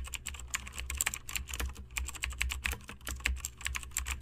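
Computer keyboard typing: quick, irregular key clicks, several a second, over a low steady hum.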